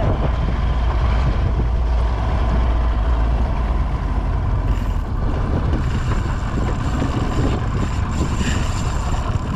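Steady rumble of a boat's engine running, mixed with wind on the microphone and the wash of the sea. The low rumble eases about halfway through.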